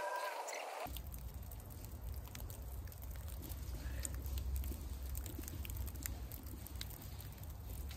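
A short sliding, pitched sound cuts off about a second in, and gives way to wind rumbling on the microphone with scattered faint ticks.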